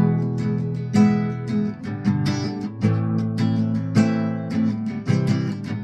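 Acoustic guitar strummed in a steady rhythm of chords: an instrumental passage of a song, with no singing.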